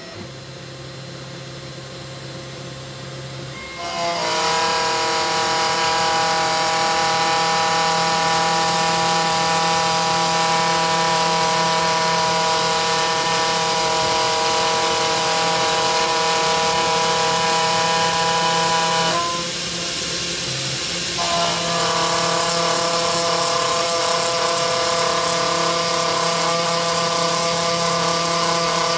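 Desktop CNC router's low-power spindle at 12,000 RPM driving a 1/8-inch single-flute end mill that slots through aluminium plate, a 0.5 mm step down per pass, making a steady, loud, high cutting whine over a hiss. The whine sets in about four seconds in, breaks off for a couple of seconds past the middle and picks up again.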